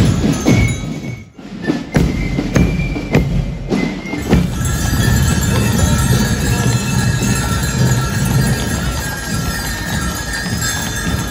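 Music with bells and percussion, a brief break a little over a second in, then a steady din with horse hooves clip-clopping, as of a street parade with horse-drawn wagons.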